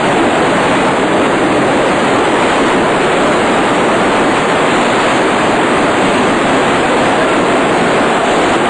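Turbulent white water from a large pump's discharge churning in a concrete basin, a steady, loud rushing noise.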